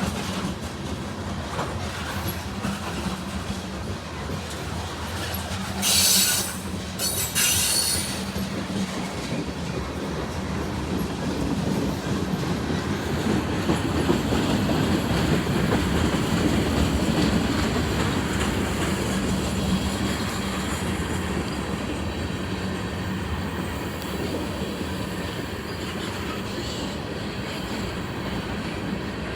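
CSX mixed freight train rolling past, its wheels clacking over the rail joints. Two short, sharp wheel squeals come about six and seven and a half seconds in, and the rumble grows louder near the middle.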